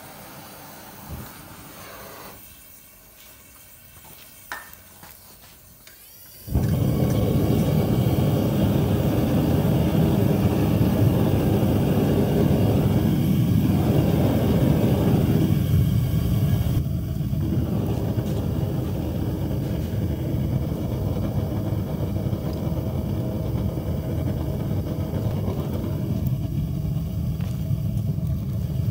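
Gas burner of a metal-melting furnace catching about six and a half seconds in, then burning with a steady, loud rushing noise that thins slightly about halfway through. Before it catches, only a faint click or two.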